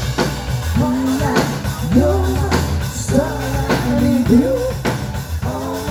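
Live rock band playing: a singer carries a melody over a drum kit and bass guitar, with drum hits on a steady beat about every half second.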